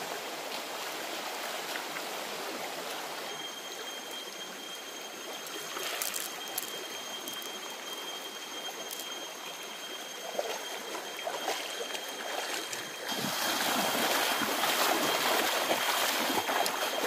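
River water running steadily over stones, a shallow stream sound that grows louder about thirteen seconds in. A thin steady high tone runs alongside from about three seconds in.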